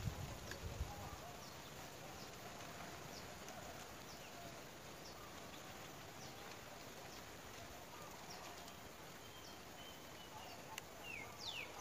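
Faint outdoor ambience with short high chirps repeating about once a second. There are low thumps in the first second and two quick falling chirps near the end.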